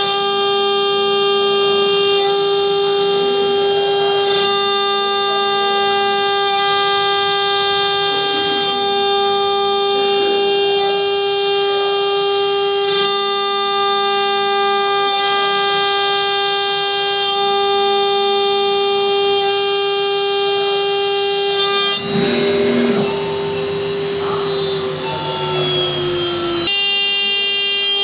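CNC machine running with a steady, loud, high-pitched whine from the spindle motor. Near the end the whine sags slightly in pitch and a rougher cutting noise joins it for a few seconds, then the steady whine comes back.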